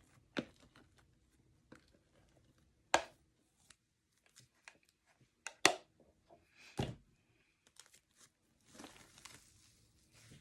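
Fluffy shaving-cream slime being kneaded and stretched by hand, giving scattered sticky snaps and pops. Three of the snaps are loud, and a short crinkly rustle comes near the end.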